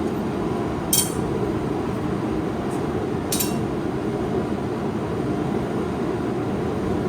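Two sharp metallic clinks about two and a half seconds apart, each ringing briefly: a hammer striking the steel knife blade on the anvil while smoothing out hammer marks. Under them is a steady low roar.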